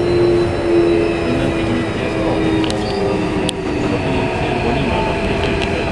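Keikyu 1500-series electric train heard from inside the car while running: the Mitsubishi IGBT-VVVF inverter and traction motors hum with short steady tones that shift in pitch, over the rumble of the wheels on the rails. A couple of sharp clicks come a little before the halfway point.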